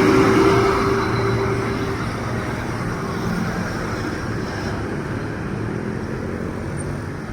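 Bus engine running as it passes, loud at first and easing over the first couple of seconds to a steady rumble of road traffic. A steady whine stops about two seconds in.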